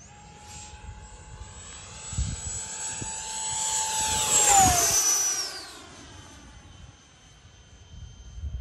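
Freewing L-39 radio-controlled jet's electric ducted fan (Wemotec fan unit, HET motor, 8S battery) whining on a fast low pass. The steady high whine swells as the jet approaches, is loudest about four and a half seconds in, and drops sharply in pitch as it flashes by, then fades to a thinner whine as it climbs away.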